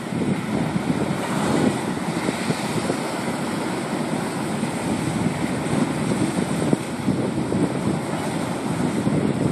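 Ocean surf washing and breaking over rocks, mixed with wind buffeting the phone's microphone, a steady, rough rushing noise throughout.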